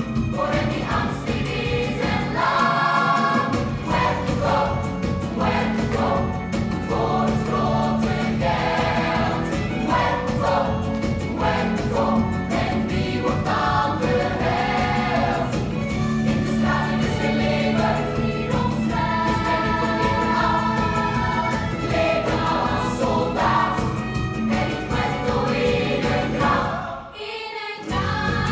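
A group of voices singing a musical-theatre number together, with a live band accompanying. The music drops out briefly near the end.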